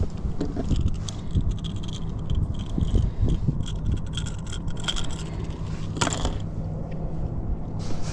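Small metallic clicks, rattles and scrapes as a topwater plug's hooks are worked out of a speckled sea trout's mouth by hand, with a louder knock about six seconds in.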